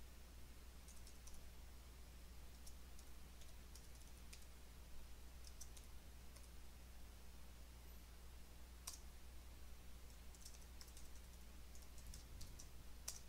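Faint computer keyboard keystrokes, sparse and in short clusters, with one sharper click about nine seconds in, over a low steady hum.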